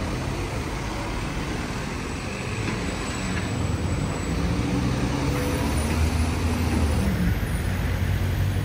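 Road traffic at a roundabout: cars and trucks driving past, their engines a low steady hum that grows louder over the second half.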